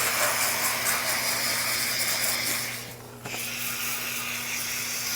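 Water spray from a hose rinsing the metal panels of an air conditioner's condenser unit, a steady hiss that cuts out briefly about three seconds in and then resumes. A faint steady low hum runs underneath.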